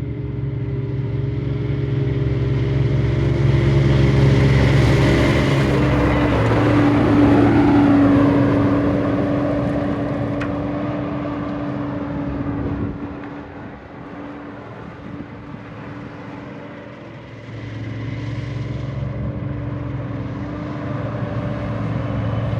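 Engine of a hay-harvesting machine running steadily with a steady hum, growing louder in the first third, dropping away about two-thirds through, then coming back.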